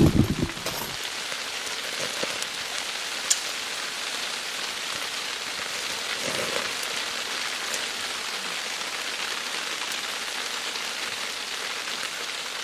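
Steady rain hissing and pattering, loud enough to drown out the sizzle of chicken fat dripping onto the charcoal grill. A brief low knock right at the start and a single sharp click about three seconds in.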